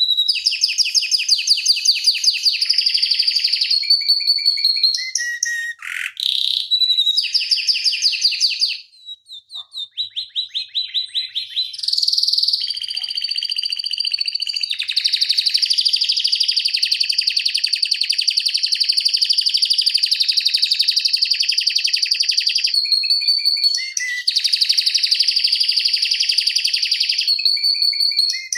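Domestic canary singing long, fast rolling trills (the 'ngeroll' style), broken by short whistled notes. One unbroken roll lasts about eight seconds in the middle of the passage.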